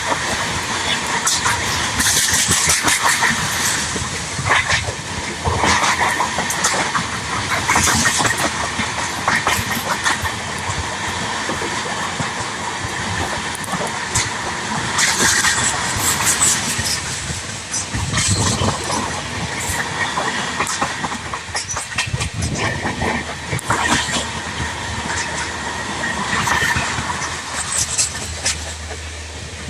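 Passenger train coaches passing close by: wheels clattering over the rail joints in irregular clicks above a steady rush of rolling noise.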